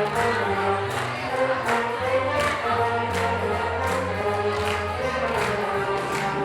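Music with a group of voices singing held notes over a bass line and a steady beat.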